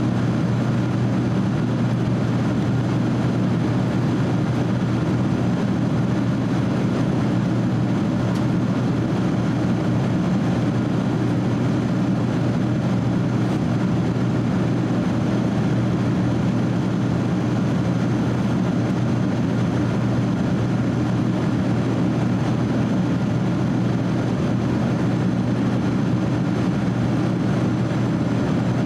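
Steady in-flight cabin noise of a Boeing 767-300 airliner heard from inside the cabin: a constant low hum from the twin turbofan engines mixed with the rush of airflow, unchanging throughout.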